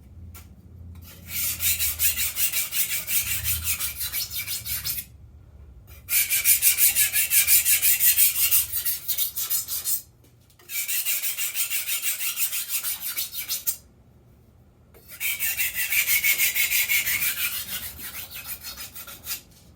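Japanese kitchen knife's steel edge stroked back and forth on a wet 350-grit whetstone, a gritty scraping in four runs of quick strokes, about three a second, with short pauses between. The coarse stone is grinding out a nick in the edge.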